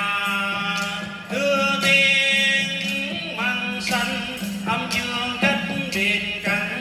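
Live Vietnamese folk-song ensemble music: a melody of held notes that slide from one pitch to the next, over sharp hand-percussion strokes about twice a second.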